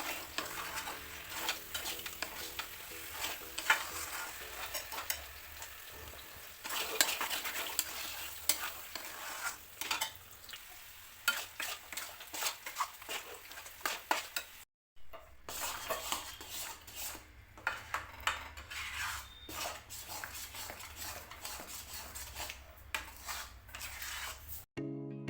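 Food sizzling in a pan while it is stirred and scraped with a spoon, in irregular scrapes and clicks. The sound breaks off for a moment about fifteen seconds in, then goes on.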